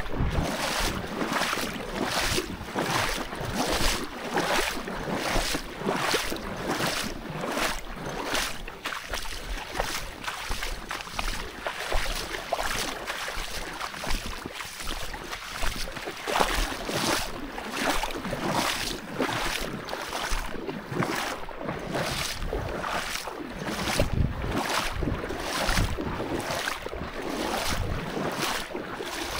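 Footsteps rustling through streamside grass and brush at a steady walking pace, about two steps a second, with some wind on the microphone.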